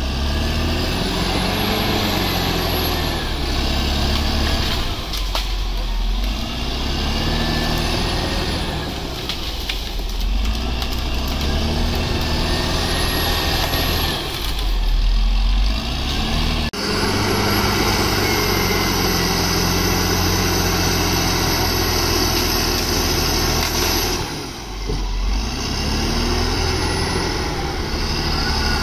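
Caterpillar D7R crawler dozer's diesel engine running under load, its pitch rising and falling every few seconds as the blade works the soil.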